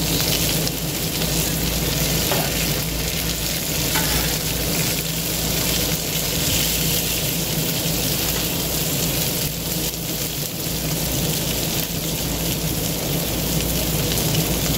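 Boneless chicken thighs and sliced bell peppers sizzling steadily on the hot steel flat-top of a Blackstone griddle, while a metal spatula scrapes and turns the peppers. A steady low hum runs underneath.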